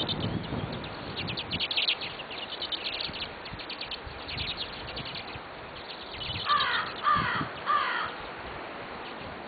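Wild birds calling: quick series of high chirps from small birds, then three loud calls about half a second apart from a larger bird.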